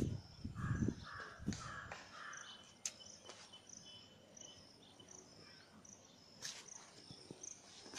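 Quiet rural outdoor ambience: a bird gives four short, harsh calls in quick succession in the first two seconds, while faint high chirps of small birds or insects repeat throughout. A few low thumps are heard at the start.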